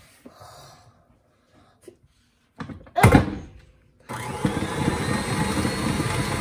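Tilt-head KitchenAid Classic stand mixer: a loud clunk about three seconds in as its head is lowered onto the bowl, then about a second later the motor starts and runs steadily, its flat beater working the stiff peanut-butter cookie dough.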